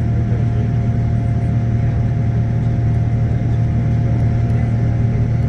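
Steady drone of a Boeing 787-9 in flight after takeoff, heard from inside the cabin: a strong low hum under an even rush of engine and airflow noise, with a faint steady whine.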